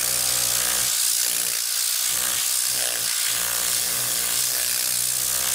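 Tornador blow-out tool blasting compressed air into a foam polishing pad held still on the polisher: a loud, steady hiss with a low buzz from its whipping filament. It cuts off suddenly near the end.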